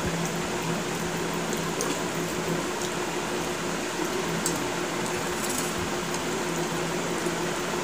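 Steady hum and hiss of a running fan, with soft squishing and a few small clicks of fingers mixing rice and fish curry on steel plates while eating.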